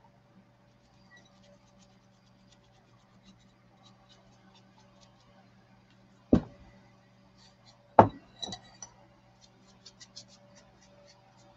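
Two sharp knocks about a second and a half apart, from craft items being handled and set down on a tabletop, followed by a few lighter knocks after the second. Faint light ticking and a steady low hum run underneath.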